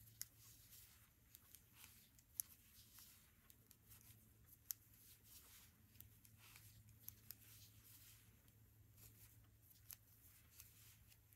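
Near silence with faint ticks and rustles of metal knitting needles and yarn as stitches are wrapped for a bobble, a few sharper clicks among them, over a low steady hum.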